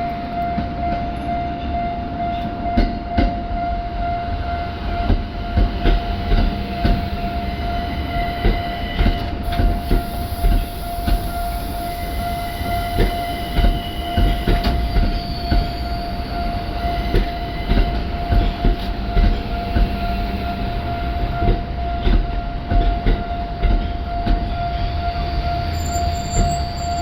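Ginza Line subway train rolling across a level crossing, its wheels clacking over the rail joints, often in pairs. A steady high tone from the crossing alarm sounds under the clacking.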